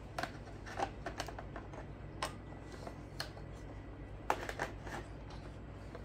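Light, irregular plastic clicks and knocks from a Nescafé Dolce Gusto Piccolo XS coffee machine being handled: the capsule holder being pushed into place, then the machine tipped over. A short cluster of clicks comes about four seconds in.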